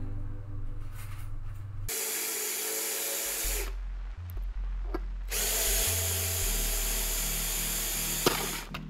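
Power drill boring through a thin sheet-metal tin clamped in a vise, in two runs: one starting about two seconds in, the other from about five seconds to near the end.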